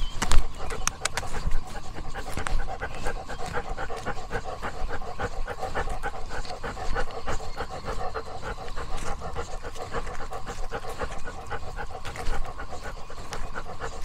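A dog panting quickly and steadily, about four breaths a second, with a few sharp knocks in the first second.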